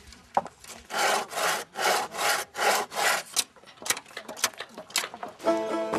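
Hand saw cutting wood with six quick, even strokes, followed by a few sharp wooden clicks. Plucked-string music, banjo-like, comes in near the end.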